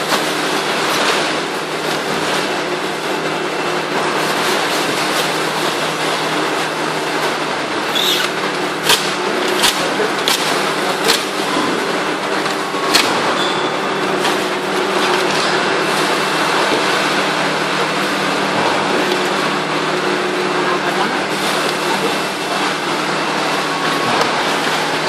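Running machinery of a polystyrene foam food-container production line: a steady loud din with a low hum. A handful of sharp clicks and knocks come about eight to thirteen seconds in.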